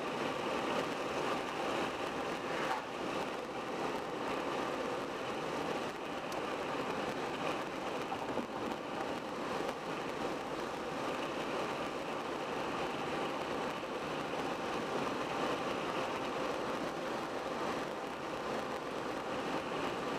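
Car driving at road speed: a steady rush of tyre and road noise with a faint engine hum, unchanging throughout.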